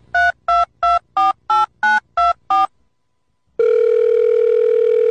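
Telephone keypad dialing tones: about nine quick two-note beeps, roughly three a second, then after a short pause a steady telephone line tone starts about three and a half seconds in.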